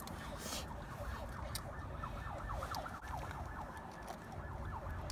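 A few light, sharp clicks as the metal lure and hook are worked out of a freshly landed brown trout's mouth by hand. Under them runs a low steady rumble, with many short falling chirps in the background.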